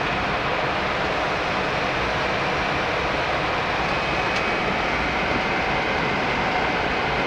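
Steady rushing noise inside the flight deck of a Boeing 767 in flight: airflow over the nose and windscreen mixed with engine and air-conditioning noise, with a faint steady high whine running through it.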